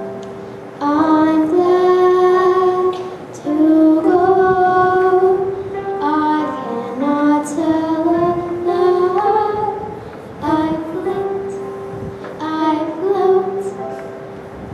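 A girl singing a solo song in phrases with short breaks between them, accompanied by held chords on an electronic keyboard.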